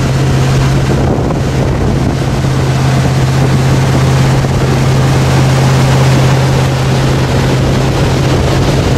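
Tow boat's engine running at a steady speed, one unbroken drone, with wind buffeting the microphone and water rushing from the wake.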